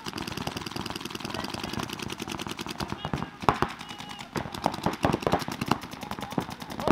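Paintball markers firing in rapid, even streams of shots, a fast popping rattle with a few louder cracks among it.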